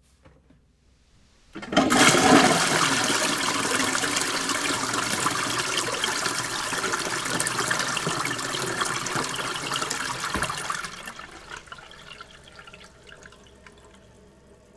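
Toilet flushing: a faint click, then a sudden loud rush of water that runs for about nine seconds before dying away to a low, fading wash.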